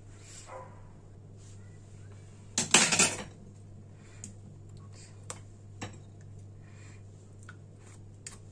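A brief, loud clatter of kitchen dishes and metal utensils about two and a half seconds in, followed by a few faint clicks and taps, over a low steady hum.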